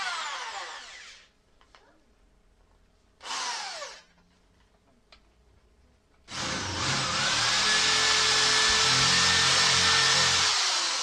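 Corded electric drill cutting countersinks into pilot holes in a timber frame. Two short bursts each spin down, then from about six seconds in it runs steadily for about four seconds and winds down near the end.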